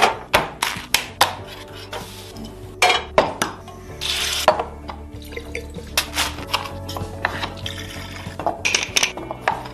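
Kitchen cooking sounds: a metal pan and utensils clinking and knocking many times, a short sizzle about four seconds in as meat drops into hot oil, and a brief pour of water into a glass jar near the end.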